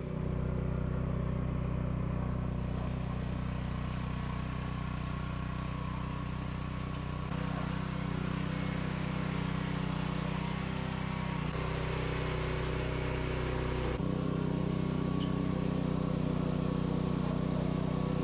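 Earthquake Victory rear-tine tiller's small gas engine running under load as the tines churn hard, compacted clay soil. The engine note holds steady, with a few shifts in pitch and loudness as the load changes.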